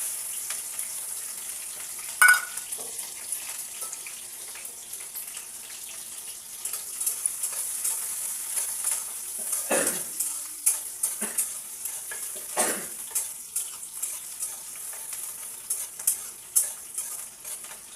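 Onion sizzling as it fries in hot oil in a pan, a steady high hiss. A utensil clicks and knocks against the pan as it is stirred, with the loudest knock about two seconds in.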